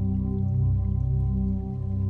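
Calm ambient new-age background music: soft sustained low chords held steadily.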